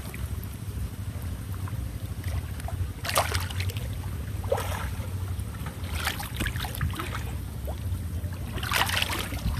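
Muddy canal water sloshing and splashing as people wade and grope through it by hand, in several short bursts, over a steady low rumble of wind on the microphone.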